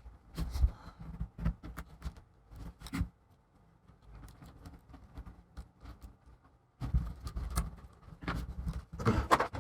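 Plastic display lid of a Chromebook being pried and flexed off its taped-in panel: irregular sharp clicks, creaks and scrapes, a few in the first three seconds, then a busier run from about seven seconds in.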